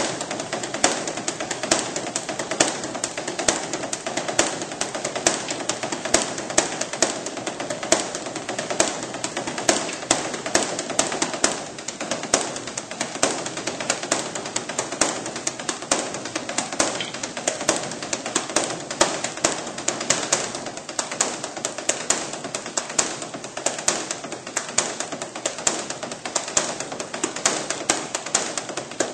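Buddhist temple drum (beopgo) played by monks with two sticks: a fast, unbroken run of strokes with a louder accent about once a second.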